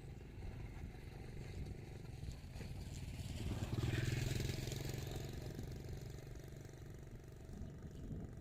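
A motor engine running steadily. It grows louder to a peak about four seconds in, then fades back, as if passing by.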